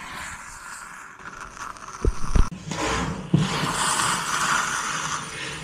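Exothermic (thermite) weld charge burning in its mold on a copper ground wire, hissing and fizzing as the molten metal forms the weld. There are a few dull thumps a little after two seconds and again about three and a half seconds in.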